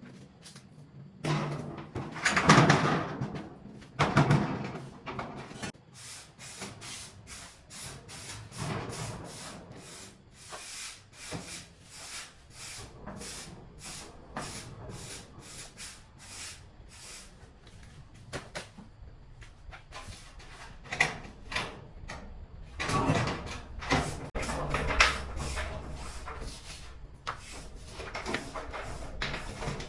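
Indistinct voices near the start and again near the end, with a run of quick clicks and rustles between them.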